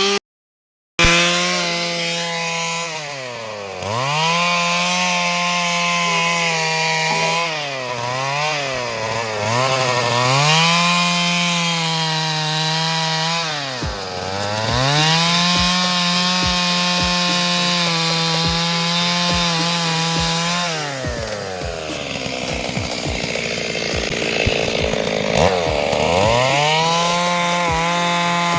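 Stihl two-stroke chainsaw cutting wood, held at full throttle and dropping back toward idle several times between cuts before revving up again, with a longer low spell about three quarters of the way through. The sound cuts out completely for about a second near the start.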